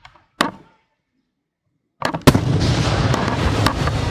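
Aerial firework shells bursting: one boom, a gap of silence, then about two seconds in a dense barrage of booms over continuous crackling.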